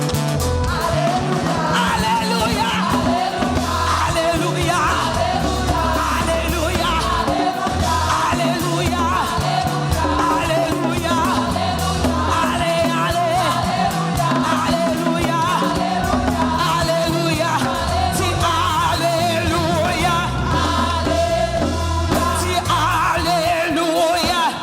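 Live gospel worship music: singing over a band, with sustained bass notes underneath.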